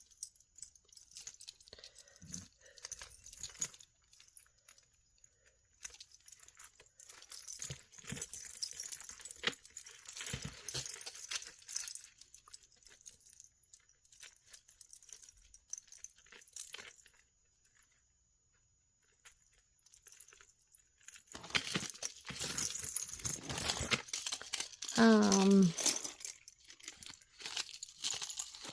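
Plastic bag crinkling and costume jewelry clinking as pieces are taken out and handled, in scattered bursts. The handling pauses briefly and then grows louder and busier. Near the end comes a short whine that falls in pitch.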